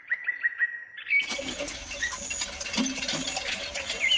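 High-pitched chirping calls repeated in quick runs, joined about a second in by a busy patter of small clicks and further chirps.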